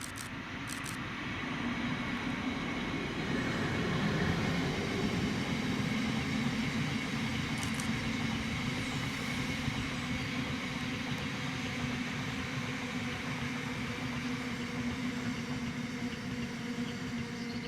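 A train running past on the main line, growing louder over the first few seconds, then a steady rumble with a low hum held through to the end. A few short high clicks sound at the start and again about eight seconds in.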